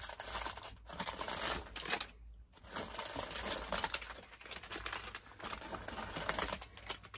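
Foil pouches of instant mashed potatoes crinkling and rustling as they are pulled from a wire shelf basket and handled, with a brief pause about two seconds in.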